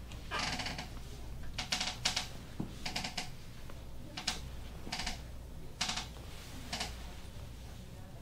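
About ten short bursts of rapid clicking at irregular intervals, the longest about half a second long near the start.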